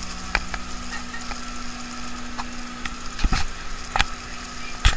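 Steady hiss with a low, even hum from a boat cabin's running machinery, broken by scattered light clicks and a couple of louder knocks, one about three seconds in and one near the end.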